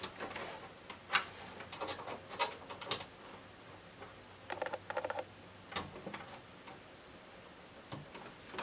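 Metal BNC connectors and coaxial cable clicking and rattling as the cable is unplugged from an oscilloscope channel input and fitted to the RF port through an RF adapter: scattered sharp clicks, with a quick run of rattling clicks about four and a half seconds in.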